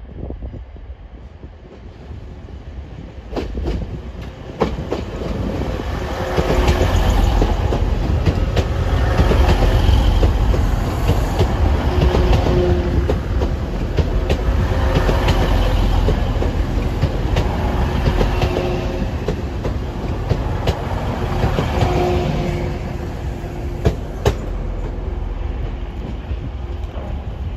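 Two coupled Class 185 diesel multiple units running close past, their underfloor diesel engines humming steadily with wheel clicks over the rail joints. The sound builds over several seconds, is loudest as the cars go by, and eases off near the end as the train draws away.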